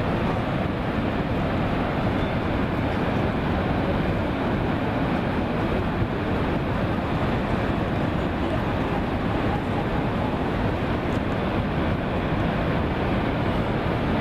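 Mount Bromo's active volcanic crater venting: a steady, unbroken deep rumbling noise.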